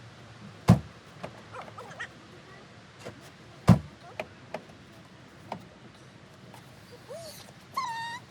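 Two sharp knocks about three seconds apart, with lighter clicks and taps between them, then a dog's short high whine near the end.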